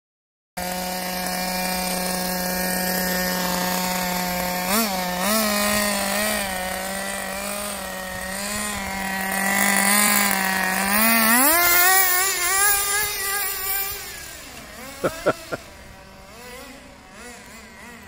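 Small nitro engine of a radio-controlled Subaru Impreza rally car idling steadily, with a few light throttle blips, then revving up about eleven seconds in as the car drives off. It fades as the car pulls away, with a few short sharp revs near the end.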